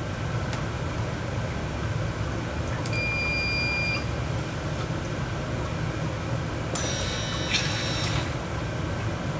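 Sump pump running with a steady low hum, while the Basement Watchdog battery-backup controller sounds a high beep lasting about a second, then a second cluster of beeps about seven seconds in. The alarm is the controller's warning that the backup pump kicked on and the primary needs checking.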